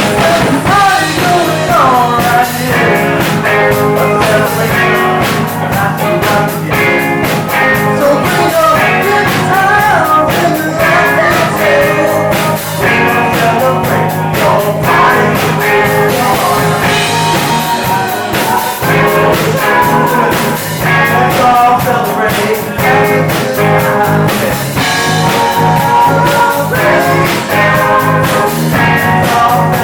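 Live band playing a rock and soul cover, with a singer and electric guitar over a steady beat.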